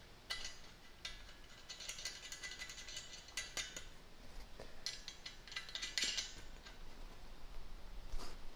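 Nuts being threaded onto hex bolts on a trap bar's swivel feet: quick, faint metallic clicking and rattling in two spells, about a second in and again around five seconds, with a few single clicks between.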